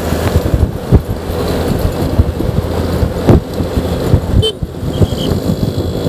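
Honda Vario 125 scooter's single-cylinder engine running steadily at cruising speed, with wind buffeting the action-camera microphone in irregular low gusts and thumps.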